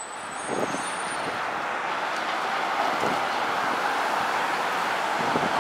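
Street traffic: engine and tyre noise from vehicles, with a car passing close by. The noise rises over the first second, then holds steady.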